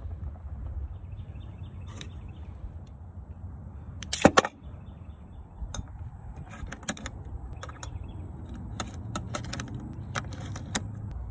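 A single sharp bang about four seconds in, most likely a pistol shot, followed by a scattered run of light metallic clicks, typical of handling the gun. A low steady rumble runs underneath.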